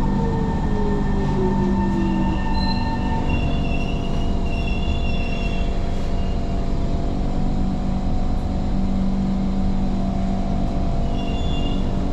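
Singapore MRT train running on the rails with a steady rumble, a motor whine sliding down in pitch over the first two seconds or so, and short high-pitched wheel squeals a few seconds in and again near the end.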